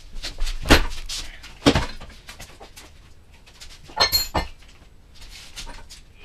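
Scattered knocks and metallic clinks of tools and sheet metal being handled, with one short ringing clink about four seconds in.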